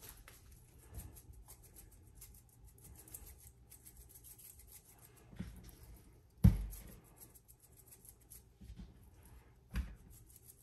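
Faint kitchen handling sounds as garlic-and-herb seasoning is sprinkled over raw chicken breasts: light rustling and clicking, with three soft knocks, the loudest a low thud about six and a half seconds in.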